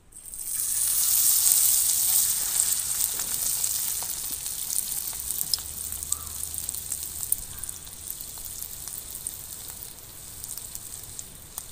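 Batter-coated mantis shrimp deep-frying in hot oil: a sizzle full of small crackling pops that starts suddenly, is loudest in the first couple of seconds, then slowly dies down.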